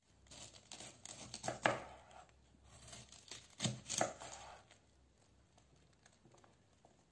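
Kitchen knife cutting through the raw core of a green cabbage on a wooden board, with crisp crunching strokes. The cuts come in two clusters: a run in the first two seconds, then a couple of louder crunches about four seconds in.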